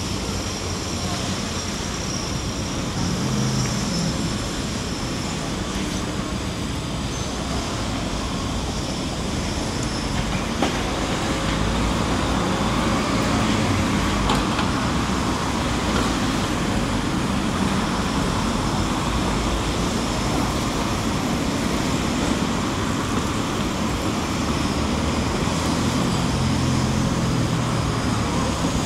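Steady road traffic noise: engines running and vehicles passing along a city street.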